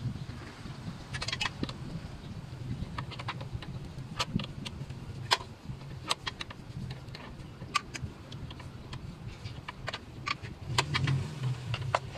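Irregular metallic clinks and knocks of hand tools and bolts in a car engine bay as the alternator is being unbolted, over a low steady hum.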